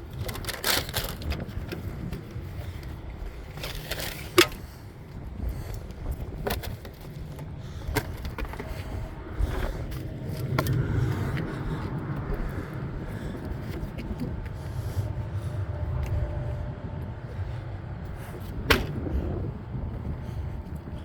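Handling noise from ratchet straps and their metal hooks: scattered sharp metal clicks and knocks with some scraping, over a steady low rumble. The loudest knock comes about four seconds in and another near the end.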